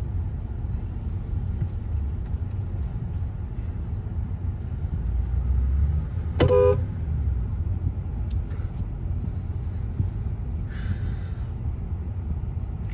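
Steady low rumble of a car driving in slow traffic, heard from inside the car, with one short horn toot about six seconds in and a brief hiss near the end.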